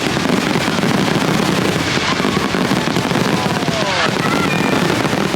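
Fireworks going off in quick succession, a dense, continuous crackle of bursts.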